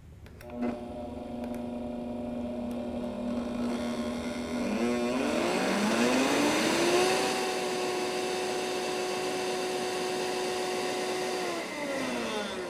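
Countertop blender motor switched on with a click, running at a lower speed for about five seconds, then speeding up with a rising whine to a higher steady speed. Near the end it is switched off and spins down, the whine falling away.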